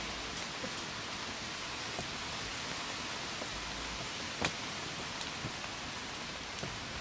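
Wood fire burning with a steady hiss and a few sharp crackling pops; one louder click about four and a half seconds in.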